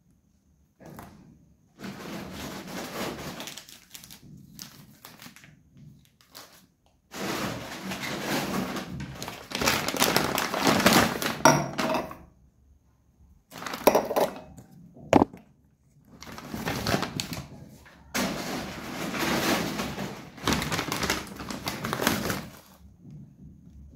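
Plastic shopping bag rustling in bursts as groceries are taken out, with items knocked down onto a stone countertop, including a couple of sharp knocks about two-thirds of the way through.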